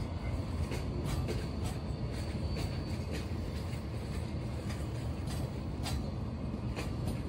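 Container-laden freight wagons (Koki 107 flat cars) of a JR Freight container train rolling past: a steady low rumble of wheels on rail, with irregular sharp clicks from the wheels on the track.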